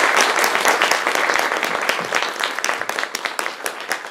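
Audience applauding with many hands clapping, loudest at the start and gradually thinning out.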